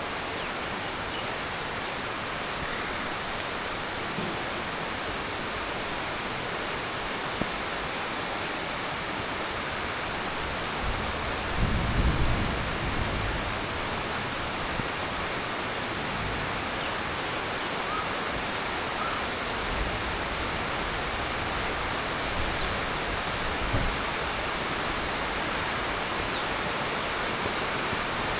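Heavy monsoon rain falling steadily, a dense even hiss of rain on leaves and roof. A brief low rumble swells about twelve seconds in.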